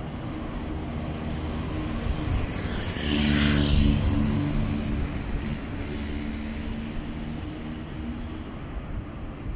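Road traffic on a city street, a steady engine hum. About three seconds in, a vehicle passes close by: its engine and tyre noise swell and then fade.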